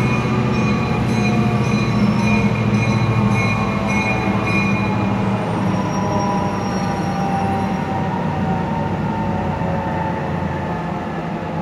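BN 3613 diesel locomotive running at low speed as it approaches, its engine a steady low drone. Thin, high wheel squeals come and go, changing pitch partway through.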